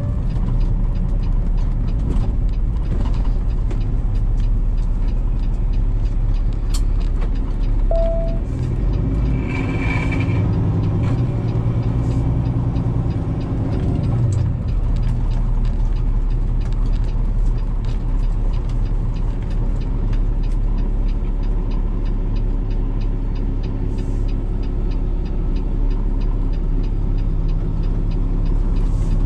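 Cummins ISX15 diesel of a Peterbilt 389 semi truck running steadily while the truck moves slowly. The engine note shifts between about eight and fourteen seconds in, with a brief high squeal around ten seconds in.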